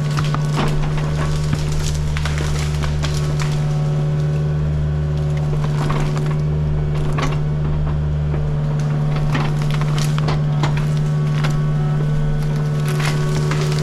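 Excavator's diesel engine running steadily, its low rumble swelling and easing with the load, while wood cracks and splinters again and again as brush and a stump are torn out.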